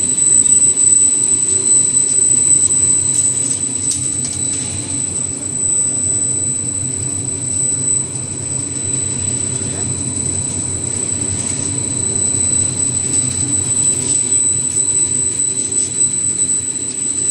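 Pet-treat food extruder line running in a factory hall: a steady machine drone with a constant high-pitched whine over it.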